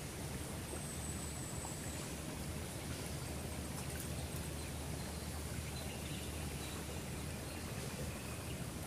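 Steady outdoor woodland ambience: an even hiss over a low rumble, with a faint thin high note about a second in.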